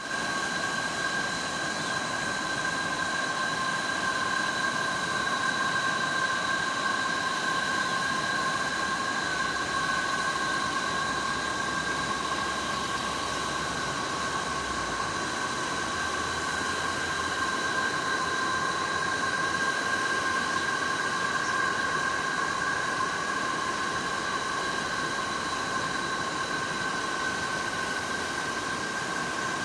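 A chorus of insects, likely crickets or cicadas, trilling without a break at several steady high pitches over a constant hiss.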